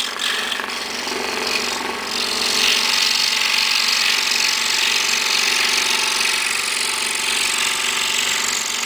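Excalibur scroll saw running, its fine number 2 blade cutting through half-inch maple as the piece is fed around an inside corner. The sound is steady, and the hiss of the cut gets brighter and a little louder about two seconds in, as the blade bites into the wood.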